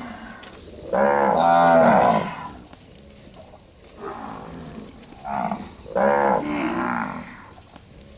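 Cattle mooing: two long, loud moos about five seconds apart, with two shorter, fainter calls between them.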